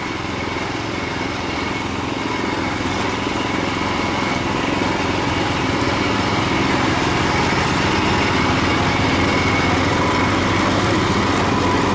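Garden tractor's small engine running steadily as it drives along a trail, growing slightly louder over the first few seconds.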